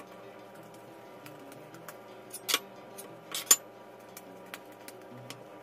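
Small clicks and knocks of things being handled during kitchen work, with two sharper clicks about two and a half and three and a half seconds in, over a steady low hum.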